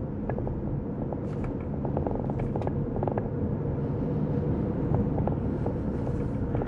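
Car in motion heard from inside the cabin: a steady engine and road rumble, with a few faint irregular ticks.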